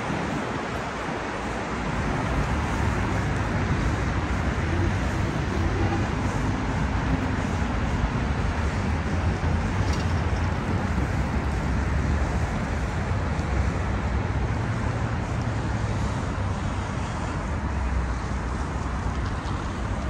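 Steady city road traffic: a continuous low rumble of cars, swelling and easing slowly as vehicles pass.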